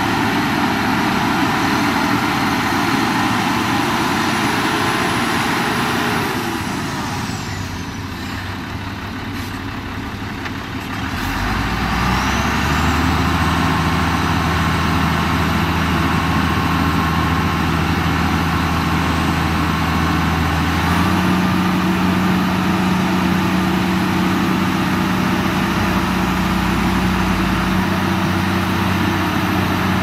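Heavy diesel earthmoving machinery running loudly. The noise dips for a few seconds about a quarter of the way in. Then a deep, steady engine note comes in and steps up in pitch about two-thirds through.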